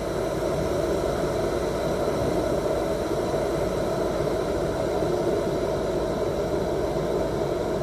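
Electric kettle heating water close to the boil: a steady rushing rumble with no breaks.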